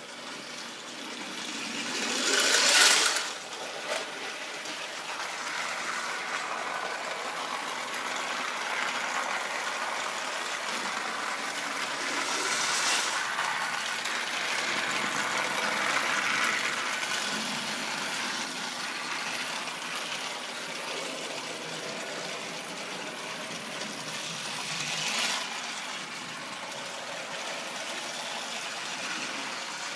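Battery-powered Trackmaster motorized toy train engines running on plastic track: a steady whirring and rattling of small gear motors and wheels. The sound swells sharply about three seconds in and briefly again near the end as an engine passes close.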